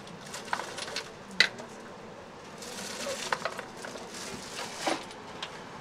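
Objects being handled in a plastic crate: scattered light clicks and knocks, one sharp click about a second and a half in, and two short bouts of plastic-bag rustling.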